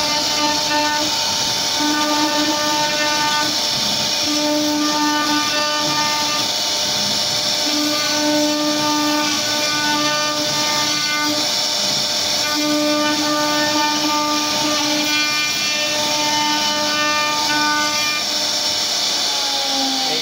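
CNC router spindle milling a relief flower into a wooden board: a steady, loud cutting noise with a pitched whine that breaks off and comes back every second or two as the bit works through the wood.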